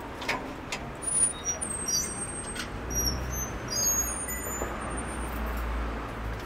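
Low rumble of a motor vehicle, setting in about two and a half seconds in, with a few short high chirps and light clicks over it.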